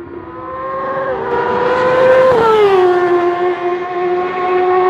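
A racing motorcycle engine revving high. Its pitch climbs gently, drops sharply a little over two seconds in, then holds steady.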